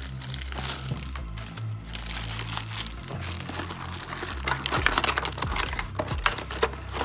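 Crinkly plastic wrapping being handled and pulled off a small Christmas ornament, the crackling getting sharper and louder about halfway through, over background music.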